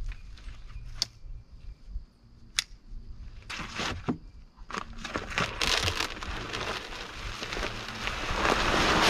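Deer feed of corn, protein pellets and mineral pouring from a bag into a Boss Buck protein feeder's hopper, a steady hiss of grain that grows louder toward the end, with the bag crinkling. Two sharp clicks in the first few seconds, before the pour gets going.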